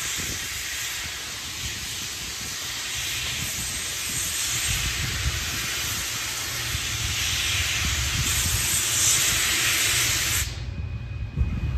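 Steam locomotive venting steam with a loud, steady hiss and a low rumble beneath it, the hiss cutting off suddenly about ten and a half seconds in.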